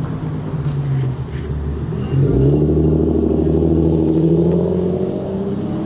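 City street traffic: a car's engine running as it drives past, louder from about two seconds in.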